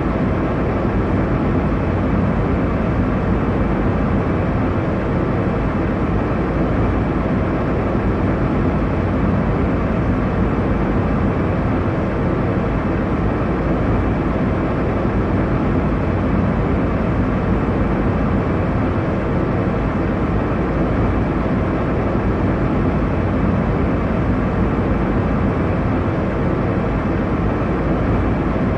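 Steady airliner cabin noise in flight: an even, unchanging rush of engine and airflow noise, strongest in the low and middle range, with a few faint steady hums.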